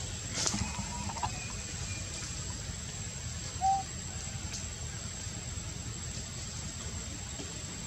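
A couple of short cluck-like animal calls over steady outdoor background noise with a thin, constant high whine; the loudest call is a single brief one about three and a half seconds in.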